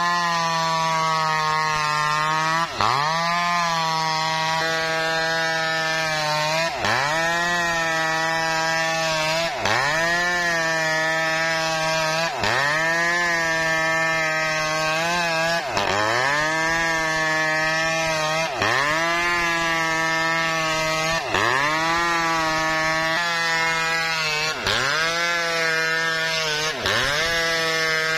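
Petrol chainsaw running at high revs while cutting through a coconut palm trunk. About every three seconds its engine pitch dips sharply and recovers.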